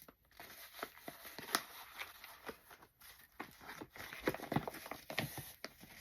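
Packaging and tools being handled: rustling with scattered light clicks and knocks.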